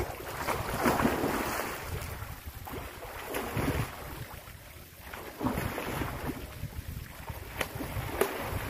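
Water splashing in several bursts as a swimmer kicks and strokes across a pool, with wind rumbling on the microphone.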